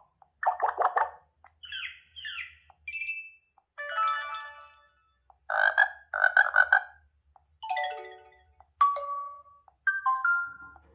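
A Xiaomi 11 Ultra phone playing a run of short built-in alert sounds one after another. There are about eight of them, each a second or less with short gaps between: chimes, chirps, buzzy pulses and a few stepped or falling tones.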